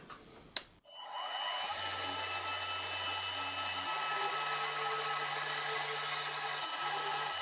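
A click, then the machine's spindle motor starts about a second in and runs steadily with an even whine, drilling the cotter-pin hole in the collar casting.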